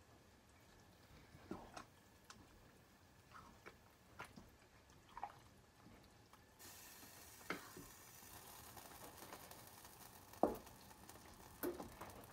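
Faint wet squishes and light knocks of a spoon stirring a thick chicken, tortilla and cheese casserole mixture in a stock pot, scattered once or twice a second, with a faint steady hiss coming in about halfway through.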